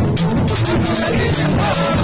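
Loud live band music with a steady beat.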